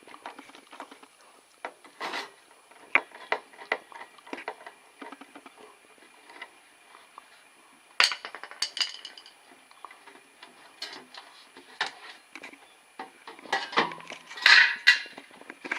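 Refrigerator's rear access cover being taken off and handled: scattered clicks, knocks and light rattles, busiest about two seconds in, halfway through and near the end.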